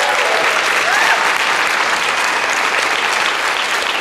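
Large audience clapping steadily, with a short rising cheer from one or two voices about a second in.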